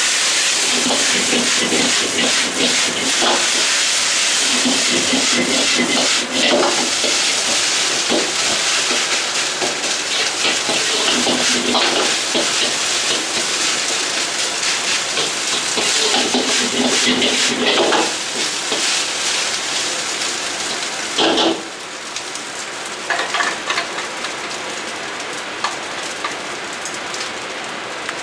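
Egg fried rice frying in a wok over a gas wok burner: a loud, steady hiss, with a metal ladle repeatedly scraping and clanking against the wok as the rice is stir-fried. About 21 seconds in there is a sharp clank, after which the hiss is a little quieter.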